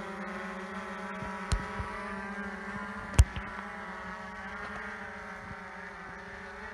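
Quadcopter drone hovering, its propellers giving a steady multi-toned buzz that dips slightly in pitch near the end. Two sharp knocks cut through it, about a second and a half in and about three seconds in, the second the loudest.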